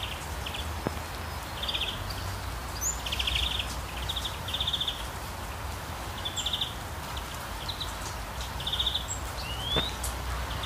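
Outdoor field ambience: short, buzzy high-pitched chirps repeat every second or so from small calling creatures, and one rising call comes near the end. A low steady rumble runs underneath.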